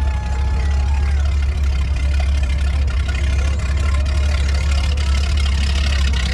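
Steady low engine drone of a slowly passing motorboat, with faint voices in the background. A long held high note ends just over a second in.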